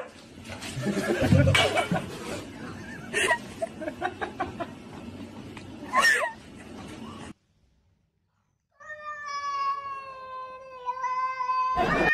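Several short sharp animal cries as a husky and a cat face off. After a break, a domestic cat gives one long, steady meow of about three seconds that sags slightly in pitch.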